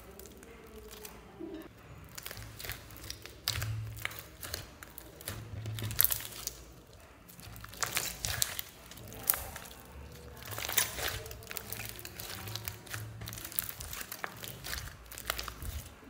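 Hands squishing and kneading a large mass of mixed slimes, with wet sticky crackling and popping at irregular intervals as the slime is pressed and pulled. The crackles grow denser and louder from about six seconds in.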